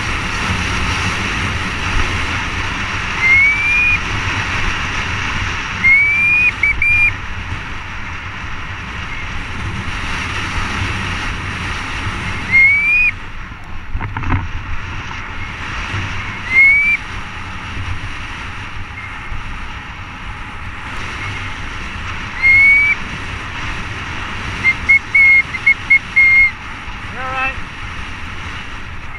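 Wind rushing over the camera and tyres rolling on a dirt trail during a mountain bike descent. Short, high squeals that rise in pitch come from the brakes at intervals, several in quick succession near the end.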